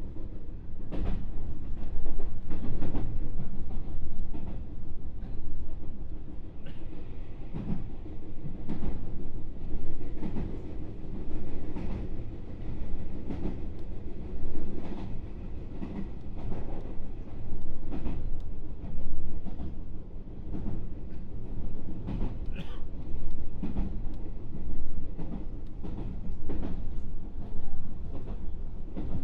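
Running sound inside a JR West 221 series electric train's motor car while it travels at speed: a steady rumble of wheels on the track, with a clickety-clack of the wheels crossing rail joints every second or so.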